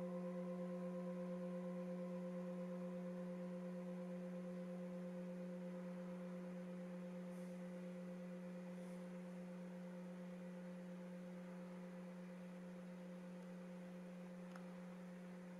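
Tibetan singing bowl ringing on and slowly dying away: a low steady hum with a few higher overtones, the highest fading out within the first few seconds, with a gentle pulsing in the tone.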